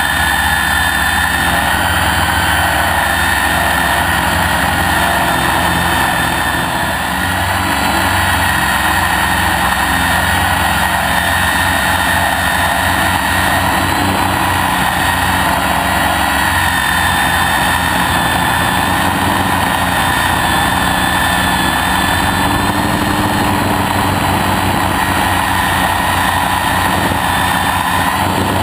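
Xaircraft 600 v2 quadcopter's electric motors and propellers running in flight, heard up close from a camera on one of its arms: a loud, steady whine whose pitch wavers slightly, easing briefly about seven seconds in.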